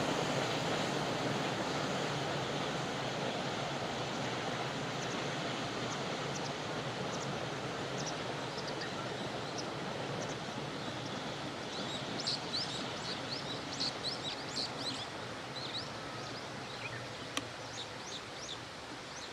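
A distant freight train of container wagons rolling away, its steady rumble slowly fading. Small birds chirp over it, more often in the second half.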